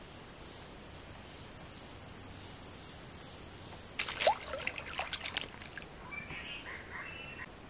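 Insects, crickets or cicadas, keep up a steady high-pitched drone that stops about halfway through. Right after it comes a quick burst of sharp, noisy knocks and splashes, the loudest sound here, and then a few faint short chirps.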